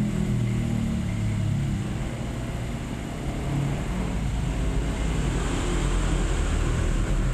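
Low, steady rumble of a running engine, wavering a little in pitch.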